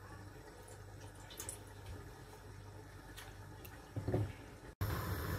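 Water poured from a jug onto a steel plate lid on a pan, trickling and dripping faintly over a low steady hum, with a few light drip ticks. A brief louder sound comes about four seconds in, and the sound cuts out for an instant near the end.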